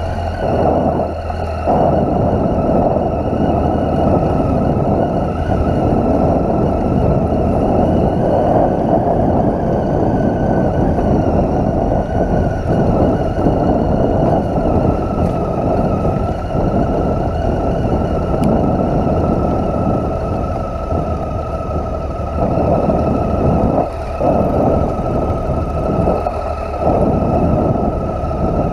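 Triumph Tiger 800's three-cylinder engine running at low speed on a rough, rocky dirt track, with a steady whine over it and heavy wind and rough-ground noise on the helmet-mounted microphone.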